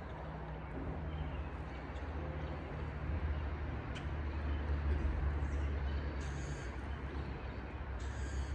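Steady low outdoor rumble with a faint hiss over it.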